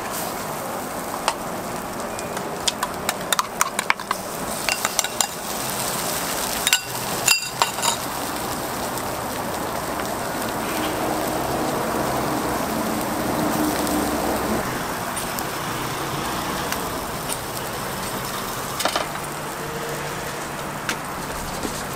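Egg and shredded cabbage frying on a flat-top griddle with a steady sizzle. Sharp metal clicks and knocks from utensils on the griddle come through the first several seconds, with a few more clinks near the end.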